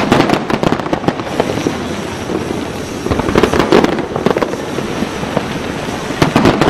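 Aerial fireworks display: many shells bursting in quick succession, a rapid run of bangs and pops over a steady rumble, thickest about a second in, around three to four seconds in, and again near the end.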